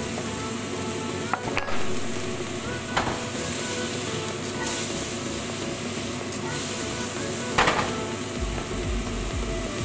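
Diced zucchini sizzling as it fries in a pan, with a wooden spoon stirring. There are a few sharp knocks of spoon or pan against metal: about one and a half seconds in, at three seconds, and near seven and a half seconds.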